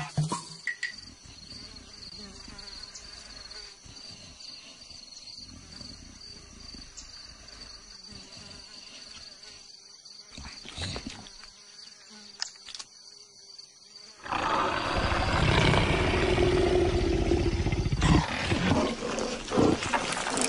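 Cartoon animal sound effects: a faint steady hum with a few scattered clicks, then a loud animal roar starting about two-thirds of the way in and lasting about six seconds.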